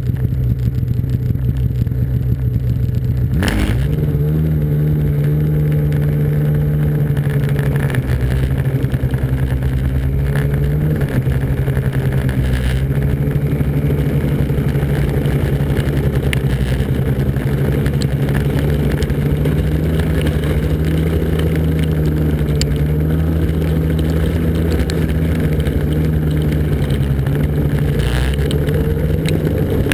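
Snowmobile engine running steadily at speed under load. Its pitch steps up about three and a half seconds in, after a short sharp bump, then holds nearly even.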